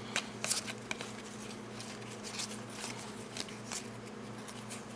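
Basketball trading cards being flipped through by hand, each card slid off the stack onto another pile with a short flick or rustle, at an uneven pace. A faint steady low hum runs underneath.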